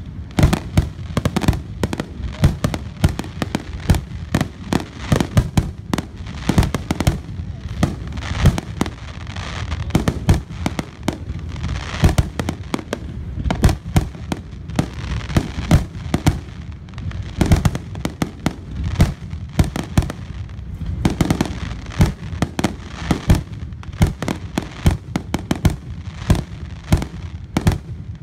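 Fireworks display: aerial shells bursting overhead in a rapid, continuous string of bangs and crackles, several a second.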